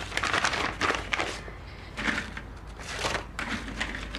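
Brown paper bag rustling and dry biscuits clattering as they are taken from a glass jar and dropped into the bag, in several short bursts.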